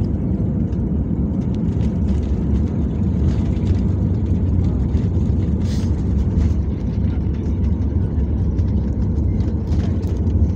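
Jet airliner rolling down the runway just after touchdown, heard from inside the cabin: a steady low rumble of engines and landing gear with the ground spoilers deployed, with a few brief clicks.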